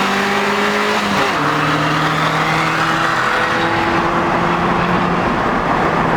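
Honda Prelude's four-cylinder engine pulling hard at full throttle in a drag race. About a second in the pitch drops sharply as it shifts up a gear, then slowly climbs again, over steady wind and road noise.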